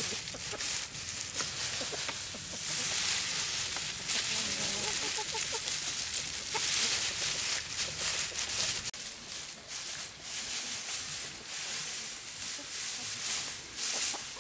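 Dry rice straw rustling and crackling as it is handled and packed around a bamboo nest frame.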